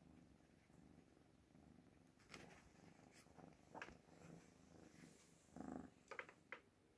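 Oriental kittens purring softly, with a few faint clicks as they shift.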